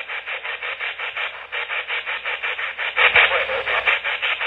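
Spirit box sweeping rapidly through radio stations: a choppy run of static pulses, about eight or nine a second, getting a little louder about three seconds in.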